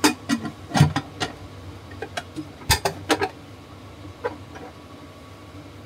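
Pressure cooker lid being fitted and twisted shut on the metal pot: a string of sharp, irregular metal clicks and knocks through the first three seconds, with one more a little after four seconds.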